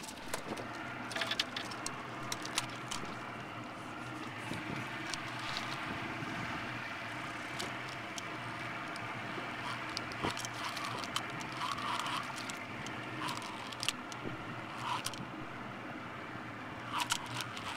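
Boat engine idling steadily, with scattered small clicks and knocks over it.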